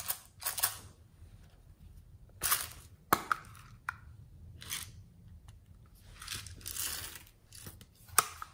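Hard plastic toy compact handled close to the microphone: rubbing and brushing swishes, with a few sharp clicks as its lid snaps open and shut.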